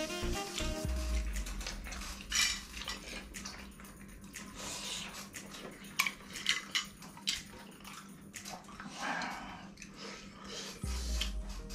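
Close-up eating sounds: metal spoons clicking and scraping on ceramic bowls and plates, with short noisy bursts of mouth sounds in between. Background music stops about a second in and comes back near the end.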